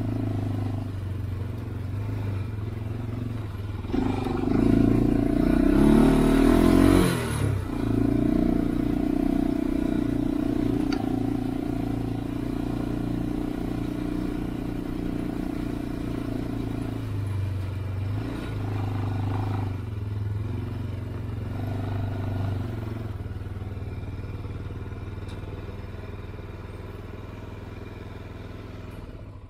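Honda 400EX ATV's single-cylinder four-stroke engine running as it is ridden over a dirt trail. It revs up and down about four to seven seconds in, then pulls along steadily.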